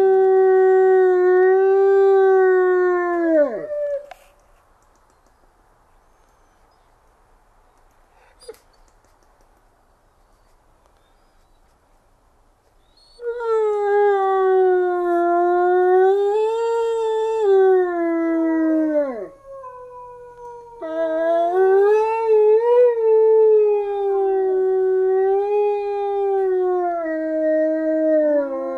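Wolves giving low-throated, subdued howls to each other: one long howl that slides down and ends about three and a half seconds in, a pause of several seconds, then howling starts again about halfway through, with a second wolf's howl overlapping the first toward the end.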